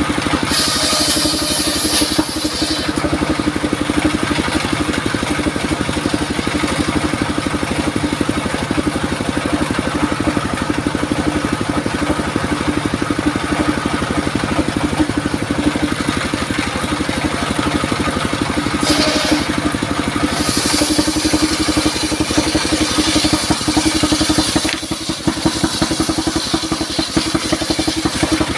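A 28 hp diesel engine running steadily with an even thumping beat, driving a mobile sawmill's circular saw. The blade cuts through wood with a bright hiss near the start and again for several seconds after the midpoint.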